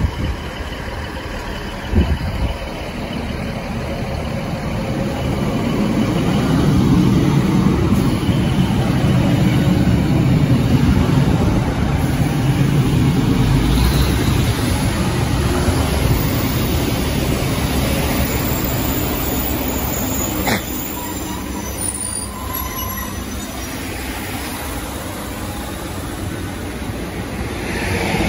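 Diesel multiple unit train, a Class 156 Super Sprinter coupled to a Class 150 Sprinter, running past the platform: a steady rumble of underfloor diesel engines and wheels on the rails that swells about a quarter of the way in and eases off in the second half.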